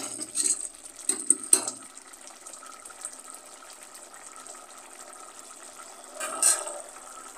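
Thick carrot halwa bubbling and spluttering as its sugar syrup boils down in an aluminium pressure-cooker pan. There are a few sharp clicks in the first two seconds and a louder burst of bubbling about six seconds in.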